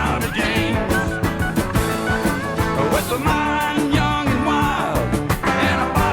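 Country song recording played by a full band of drums, bass, guitars, piano and steel guitar, with a steady beat.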